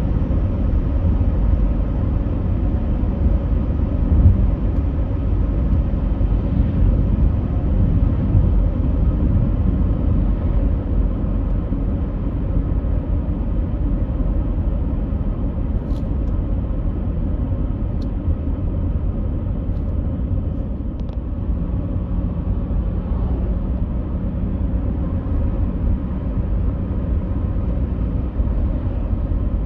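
A steady low rumbling noise with no pauses. A few faint ticks come about halfway through.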